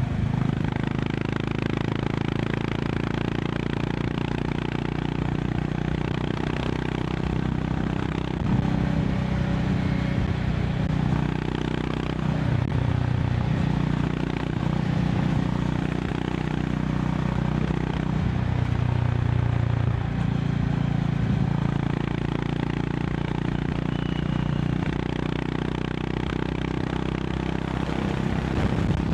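Honda CB350 RS's single-cylinder engine running at highway speed, its note rising and falling with the throttle, over a steady rush of wind and road noise.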